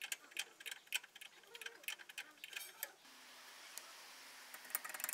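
Ratchet wrench clicking in a steady run, a few clicks a second, as the lower control arm's 14 mm bolt is loosened. About three seconds in the background changes, and near the end comes a quicker run of clicks.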